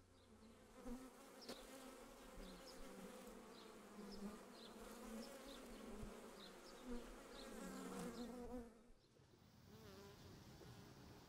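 Honeybees buzzing, a faint wavering hum of wingbeats that drops in level about nine seconds in and carries on more softly.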